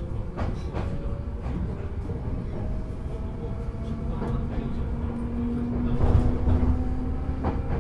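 Interior running sound of a JR 205-series electric multiple unit: a steady low rumble of wheels on rail, with a faint motor whine rising slowly in pitch as the train picks up speed, and irregular sharp clicks as the wheels cross rail joints.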